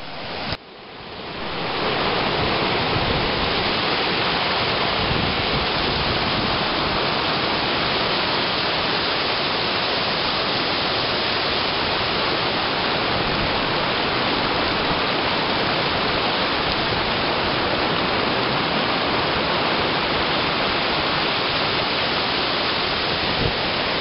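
Waterfall: a heavy flow of water rushing and churning over a rocky cascade, a loud, steady rush that fades in over the first two seconds.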